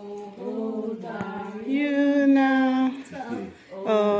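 A small group of men and women singing a birthday song together without instruments, holding long notes, with a brief pause about three seconds in.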